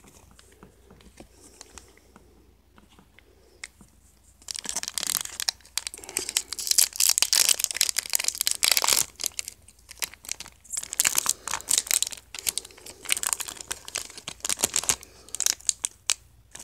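Star Trek card game booster pack wrappers being torn open and crinkled by hand. Faint handling at first, then about four seconds in a long stretch of loud crinkling and tearing with short pauses.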